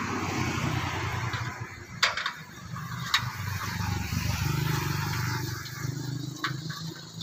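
A motor vehicle's engine running steadily, its pitch shifting slightly, with a few sharp clicks or knocks about two, three and six and a half seconds in; the loudest are the clicks at about two and three seconds.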